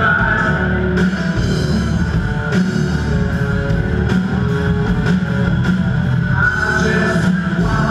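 Live rock band playing loud: electric guitars over a drum kit keeping a steady beat.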